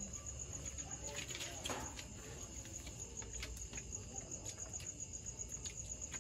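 Crickets chirping at night: a steady, high, evenly pulsed trill, with faint scattered clicks over it.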